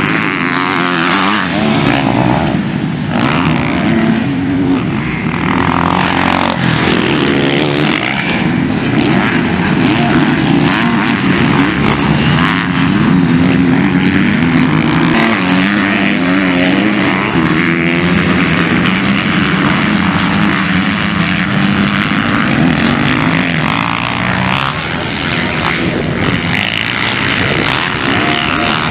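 Several motocross bikes racing, their engines revving up and dropping back through the gears as they take corners and jumps, with pitch rising and falling throughout.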